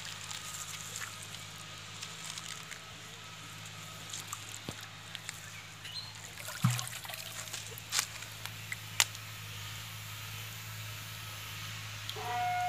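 Pond water sloshing and trickling around a clay pot as it is gripped and lifted in shallow water, with a few sharp clicks. Music starts near the end.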